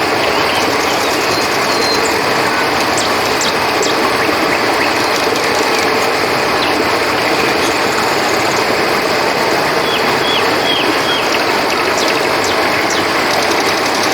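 Steady rush of flowing river water under a continuous trill of crickets, with a few short high chirps about ten seconds in.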